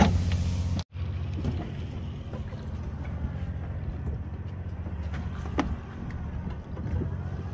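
Steady low drone of a fishing boat's engine running, with one sharp knock about five and a half seconds in. The sound cuts out for an instant about a second in.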